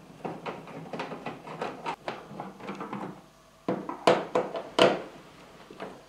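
Screwdriver and hands working on the plastic back cover of an LED TV: a run of small clicks and rattles as the Phillips screws are undone, then a few louder knocks on the plastic about four and five seconds in.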